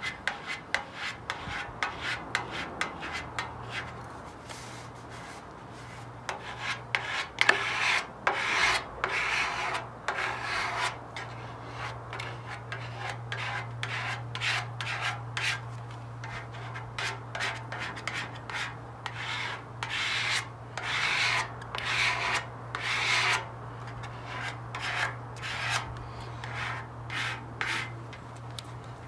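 Squeegee strokes rubbing back and forth over the paper-backed vinyl decal on a motorcycle fuel tank, in many quick, irregular scraping passes over a steady low hum. The squeegeeing is pressing the soapy water out from under the decal so that it sticks to the tank.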